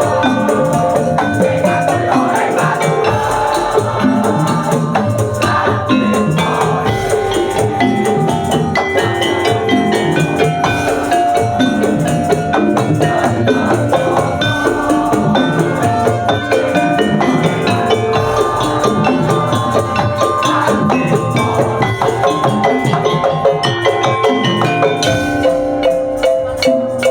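Madurese tongtong (daul) percussion ensemble playing a dense, fast rhythm of drums and rattling percussion, with sustained melodic tones running through it.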